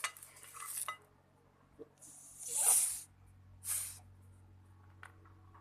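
A spoon stirring a thick, sticky flour mixture in a small bowl, making three short hissing scrapes, the loudest about two and a half seconds in. The mixture is starting to clump.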